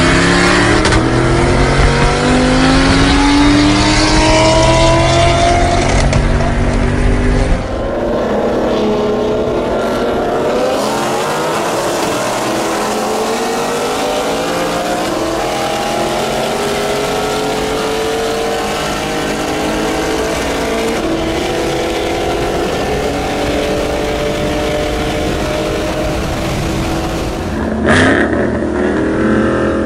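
Cars at full throttle in a highway roll race. The engines climb steadily in pitch, drop at each gear change and climb again, over heavy wind and tyre noise. The sound changes abruptly twice as one run gives way to another.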